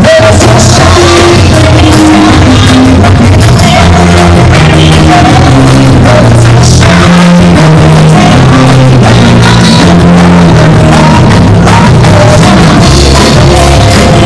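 Live band playing loud amplified music through PA speakers, with a woman singing, a drum kit and a stepping bass line.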